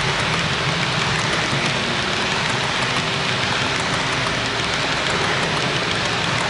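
HO scale model coal cars rolling steadily past on the track: a continuous wheel-on-rail rattle with many faint small ticks.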